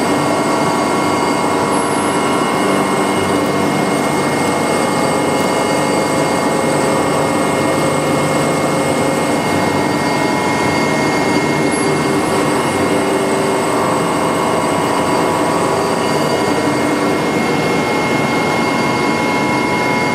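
Milling machine cutting metal with an indexable insert milling cutter: a steady machining noise with a constant high whine and several fixed tones beneath it.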